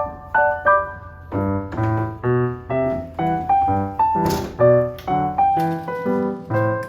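Background piano music: a light melody over bass notes, played in an even rhythm, with a brief hiss about four seconds in.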